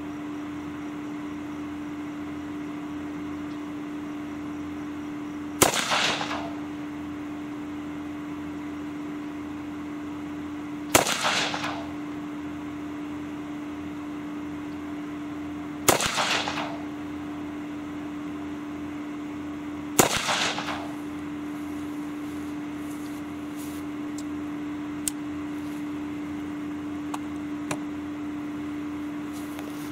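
Ruger AR-556 semi-automatic rifle in .223 Remington fired four single shots, spaced about four to five seconds apart, each with a short echo. Near the end come a few faint clicks as the rifle is set down on the bench rest.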